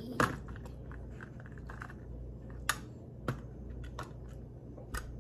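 Scattered sharp clicks and light knocks of small objects and tableware handled on a dining table. The loudest click comes right at the start, with others about two and a half, three and a quarter, and five seconds in, and fainter ticks between.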